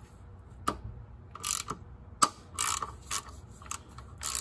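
Hand ratchet being swung on a fastener: a couple of sharp single clicks, then about five short bursts of pawl clicking on the back-swings. The ratchet is new and not yet lubricated.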